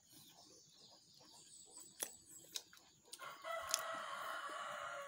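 A rooster crowing once: a single long call beginning about three seconds in and trailing off at the end, with a few faint clicks before it.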